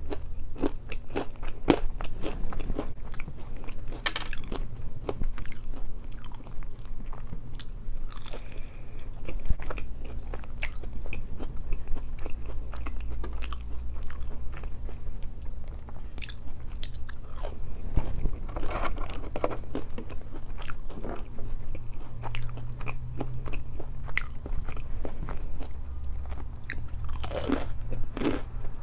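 Close-miked chewing and crunching of waffle fries, with many short crackles and wet mouth clicks over a steady low hum.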